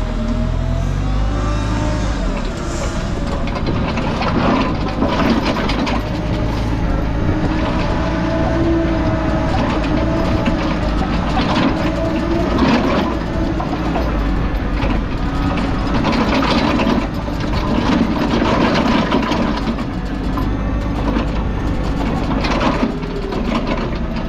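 Diesel yard machine running and working, its engine note rising and falling, with scattered clanks and knocks.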